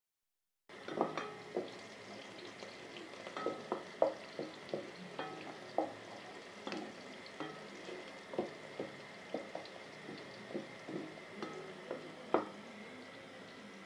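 Goat meat frying in oil in a metal pot: a steady sizzle, with irregular short knocks and scrapes about one to two a second as it is stirred.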